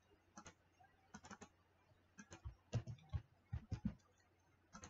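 Faint computer mouse clicks and keyboard key presses, sharp and irregular, coming singly and in small clusters, most of them about three to four seconds in.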